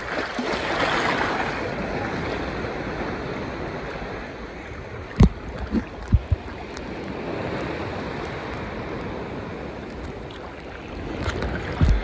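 Ocean waves washing through shallow water at the shoreline, a steady rushing that swells about a second in. A few sharp low thumps from wind buffeting the microphone come around the middle and near the end.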